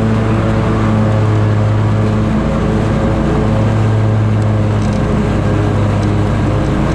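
Scag Tiger Cat zero-turn mower running steadily under load, its 61-inch deck's blades engaged and cutting grass.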